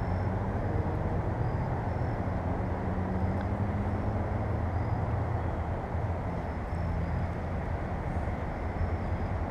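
Steady low rumble of distant road traffic, with faint short high-pitched chirps now and then.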